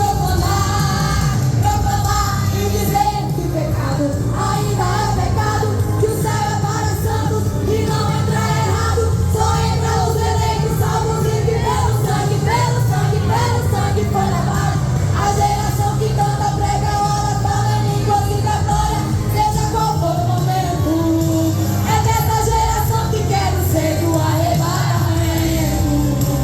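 A youth vocal group singing a gospel song over band accompaniment with a steady bass line.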